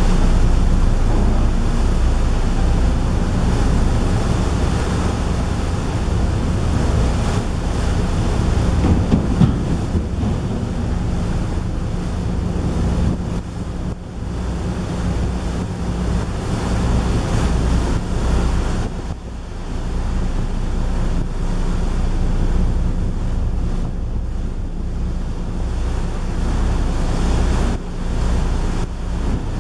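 Wind buffeting the microphone on a moving ferry, gusting and easing a few times, over the steady low drone of the ship's engines and the rush of sea water.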